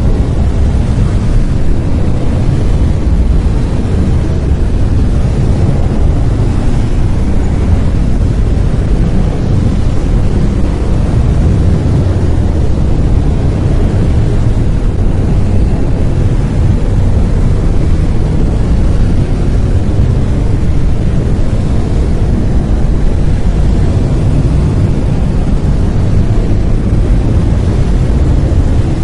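Brown noise: a loud, steady, deep hiss, heaviest in the bass and thinning toward the treble, unchanging throughout.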